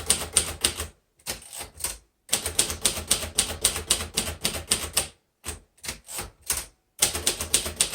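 A 1953 Royal Quiet DeLuxe portable manual typewriter being typed on: rapid runs of sharp key strikes, several a second, broken by short pauses.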